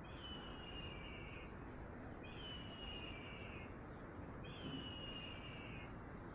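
A bird calling faintly three times, about two seconds apart, each call a long, even, high whistle lasting over a second.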